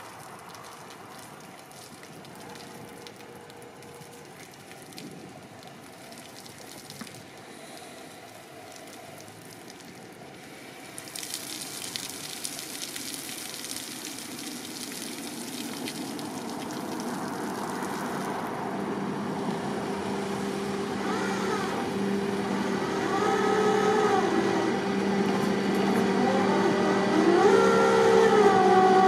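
Water spraying from a sculpture's mouth with a steady hiss for several seconds, then a motor running louder and louder, its pitch swinging up and down.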